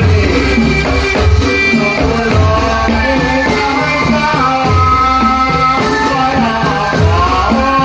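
Dolalak folk dance music: drums beating a steady rhythm under a sung melody.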